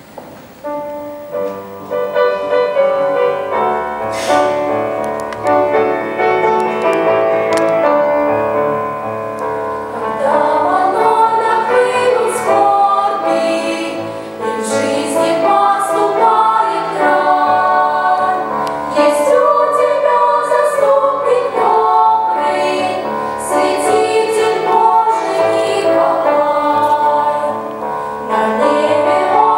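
Girls' children's choir singing with piano accompaniment, starting about a second in.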